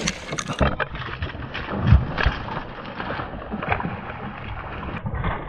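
Water splashing and churning as a big hooked Nile perch thrashes at the surface beside the boat, in a run of repeated splashes with the loudest about two seconds in.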